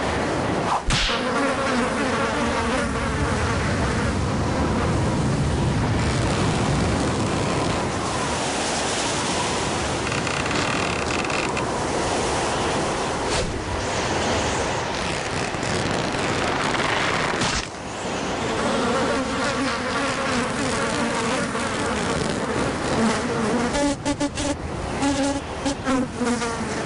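Steady, insect-like buzzing over a loud rushing noise, breaking off briefly about a second in and again about two-thirds of the way through, and turning choppy near the end.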